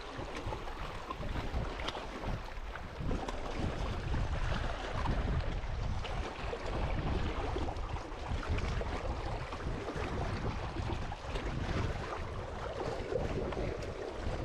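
Wind buffeting the microphone in a steady low rumble, over the wash of sea waves on the shore.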